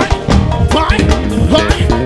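Swingueira (Bahian pagodão) band music: a heavy bass line under dense, driving percussion.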